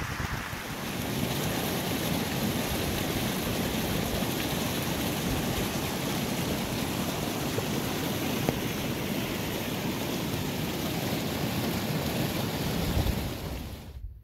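Wind buffeting the microphone: a steady rushing noise with a gusty low rumble. It drops away sharply near the end.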